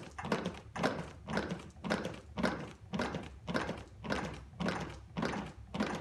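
Rhythmic CPR chest compressions on a training manikin, each push a plastic thunk with a rustle, at a steady pace of a little under two a second, the 100–120 per minute rate of CPR.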